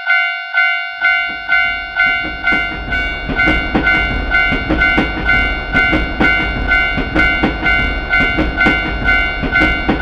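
Japanese railroad crossing bell ringing its steady kan-kan, nearly two strikes a second. From about a second in, a train passes through the crossing with a low rumble and a rhythmic clatter of wheels over rail joints.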